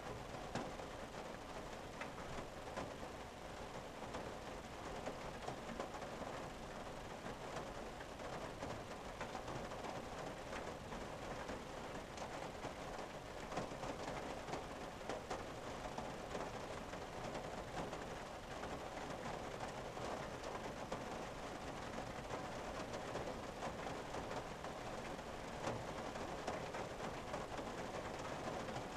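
Steady rain falling on a car's windshield and roof, heard from inside the cabin: a constant hiss of rain with many small, separate drop taps.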